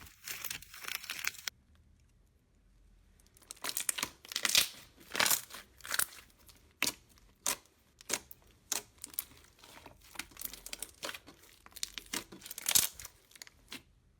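Slime being squeezed and pressed by hand, giving a run of sharp crackles and pops. The crackling stops for about two seconds after the first second and a half, then starts again.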